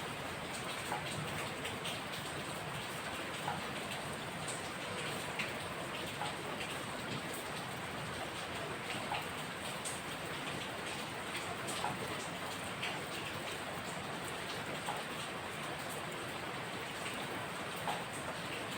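Steady rain falling, an even hiss with scattered sharper drop hits on a nearby surface.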